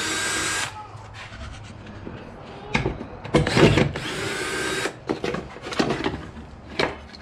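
Cordless DeWalt drill/driver with a socket spinning bolts out of the car's firewall. It runs for a moment at the start and stops, then runs again for about two seconds in the middle, with metal clicks and clinks in between.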